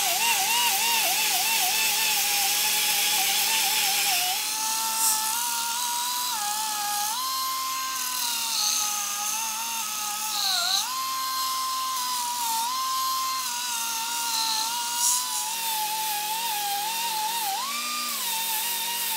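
Small abrasive power tools working the rough casting of an iron swage block. A right-angle die grinder with a flap disc, then a band file, sets up a high whine whose pitch sags and recovers as the tool is pressed into the metal. The sound changes character about four seconds in.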